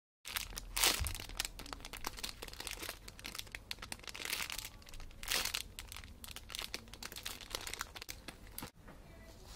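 Clear plastic packaging bag crinkling as a bagged squishy toy is handled and turned over in the hands: a dense crackle with a few louder rustles, dying down near the end.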